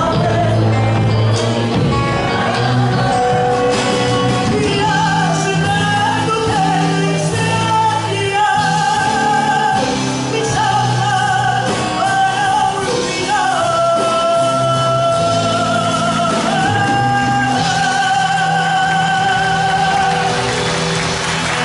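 Folk song sung with instrumental accompaniment, the voice holding long notes as the song closes. Applause breaks out in the last second.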